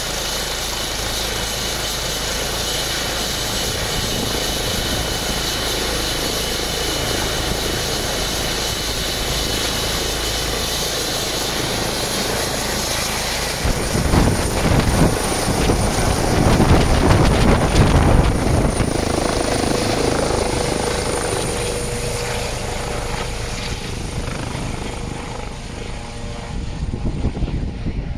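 Rescue helicopter running on the ground, its turbine engines giving a steady high whine with rotor noise. About halfway through the sound turns louder and gusty with heavy low rumble, then eases off near the end.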